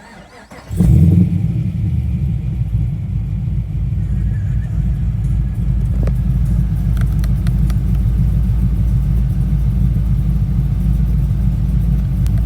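Holden VF Commodore SSV Redline's 6.0-litre LS3 V8 cranked with the starter, catching about a second in with a brief flare, then settling into a steady idle. The idle shakes the car, which the owner puts down to the camshaft.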